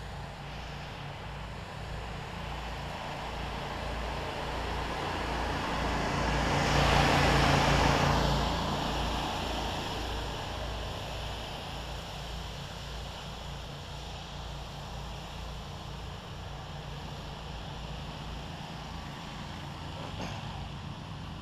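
Pressure washer running steadily with the hiss of its water stream during the rinse; the rush of spray swells loudest about six to eight seconds in, then eases off.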